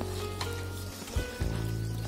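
Background music over the wet squelching of a hand mixing cauliflower florets into thick masala batter in a steel bowl.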